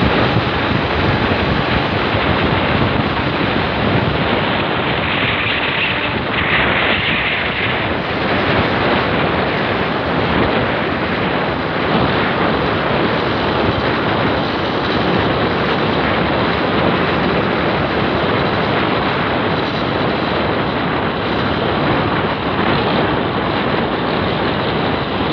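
Steady rush of wind on the microphone while riding a motorised two-wheeler, with the engine and tyre noise running underneath.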